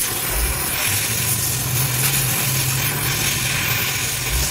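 Gas welding torch flame hissing steadily against truck-cab sheet metal, with a low uneven hum underneath.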